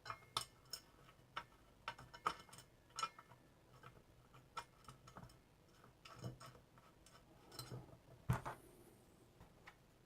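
Faint, irregular light clicks and taps of small metal parts: a bolt and washers being handled and fitted to fasten a bench drill's base, with a louder knock about eight seconds in.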